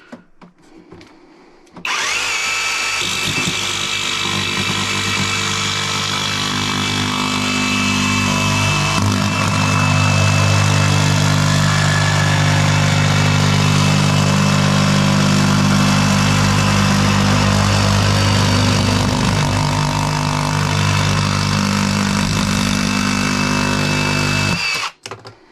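Greenworks GD24JS cordless jigsaw cutting through thin plywood. The saw starts about two seconds in, runs steadily for over twenty seconds with a constant motor whine, gets a little louder partway through, and stops shortly before the end.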